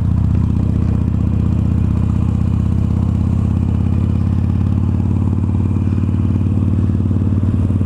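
Harley-Davidson Iron 883's air-cooled V-twin engine running steadily at cruising speed while riding, with wind noise over the microphone.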